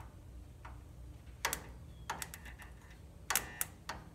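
About six sharp metallic clicks from a red-handled hand tool being worked on the mower's starter wiring, the loudest a little over three seconds in.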